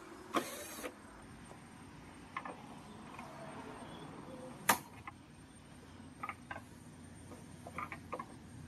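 Scattered clicks and scrapes of plastic parts being handled as a washing machine's control board is unclipped and pulled free: a short scrape near the start, one sharp loud snap a little before the middle, then several lighter clicks.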